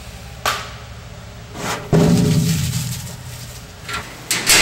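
Metal school locker being banged and rattled open: a sharp click, then a loud bang with a low rumbling ring about two seconds in, and another loud clatter near the end.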